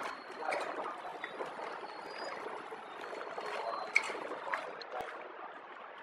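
Pillow-type flow-wrap packaging machine running: a steady crackling noise with scattered small clicks, and one sharp click about five seconds in.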